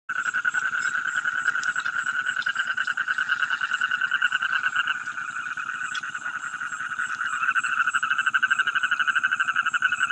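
A chorus of frogs calling at night, a fast steady trill at one pitch that runs without a break and eases off a little in the middle before growing louder again.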